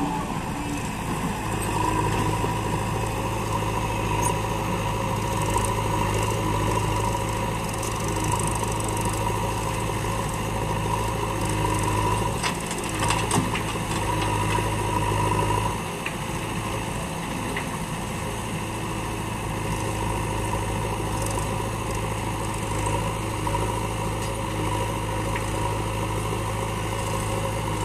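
Diesel engines of farm tractors and a JCB backhoe loader running steadily, with a few brief clunks about halfway through.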